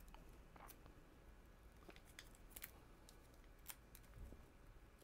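Near silence with a scatter of faint, short clicks as small M4 × 16 bolts are picked out and handled by hand.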